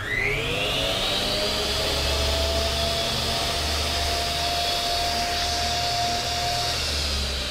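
Huspanda HCD2551 miter saw's 1600 W brushed motor switched on and running free, with no cut. A sudden start, then a whine that rises in pitch for about a second as the 255 mm blade spins up, then a steady high whine that eases slightly near the end.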